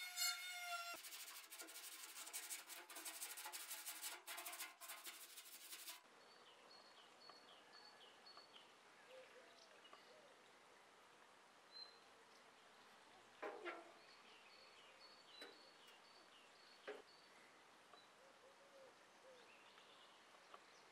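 A Dremel rotary tool with a wire brush wheel whines, then scrubs rust off the steel of a wheelbarrow with a dense scratching noise. It cuts off about six seconds in, leaving quiet outdoor air with small birds chirping and a few soft knocks.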